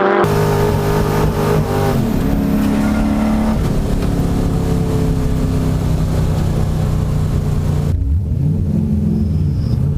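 Drift car engines from Nissan S13 and S14 cars running at high revs, the pitch holding steady and then shifting several times. The sound changes abruptly right at the start and again about eight seconds in.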